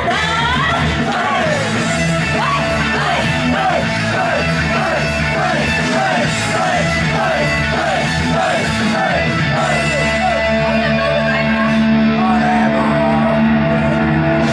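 Loud rock music with a female vocalist singing and shouting into a handheld microphone over it; from about two-thirds through, long held notes.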